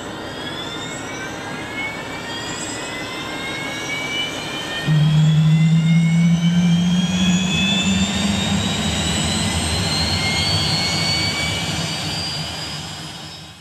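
Boeing Loyal Wingman's small commercial turbofan engine spooling up on a ground run. Its whine rises steadily in pitch, and about five seconds in a louder, deep hum joins it as the engine comes up in power.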